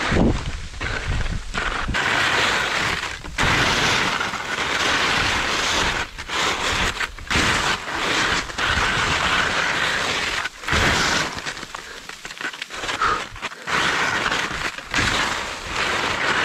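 Skis scraping and crunching over crusted snow, in long runs of rough noise broken by short gaps.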